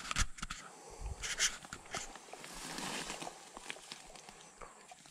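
Rustling of bankside grass and plants being pushed and handled, in a few short bursts with some light clicks.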